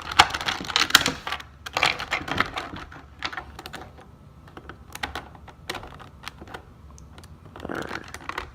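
Hard plastic pieces of a disassembled Rubik's cube clicking and clattering as they are handled, in irregular quick clicks. The clicks are densest in the first couple of seconds and sparser after that.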